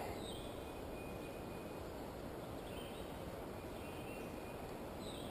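Quiet riverside ambience: a steady low rush, with a few faint, short falling bird chirps spread through it.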